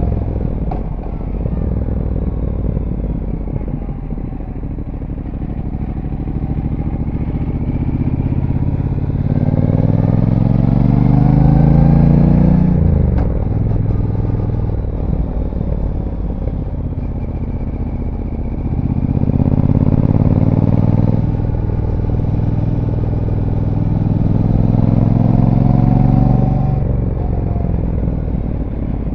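Brixton Cromwell 1200's parallel-twin engine on its stock exhaust, heard from on board while riding. The revs climb steadily under throttle and drop back as the throttle is closed, about three times.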